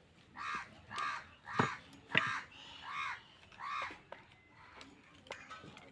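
A crow cawing six times in a row, short arched caws in the first four seconds, with a few sharp clicks among them.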